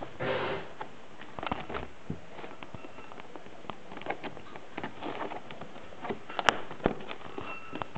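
Plastic toy packaging crinkling and clicking as a boxed doll set is handled and pulled at, with a rustling burst at the start and a louder sharp snap about six and a half seconds in.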